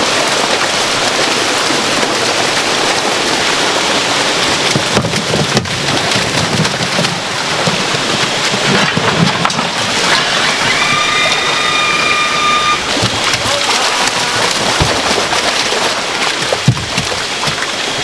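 Water rushing and splashing in salmon-farm tanks, with water pouring in from pipes in a steady, loud hiss. A few dull thumps come through, and a steady high tone sounds for about two seconds near the middle.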